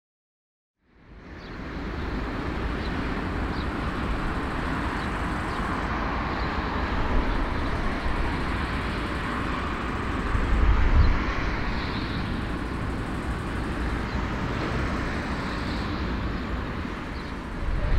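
Airbus A340-300 with four CFM56 jet engines taxiing, a steady jet roar and hiss over a deep rumble. It starts about a second in and swells briefly in the middle.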